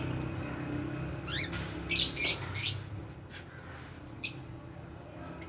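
Parrots chirping and squawking in short, sharp, high calls: a quick burst of several in the middle and a single one near the end, over a low background rumble.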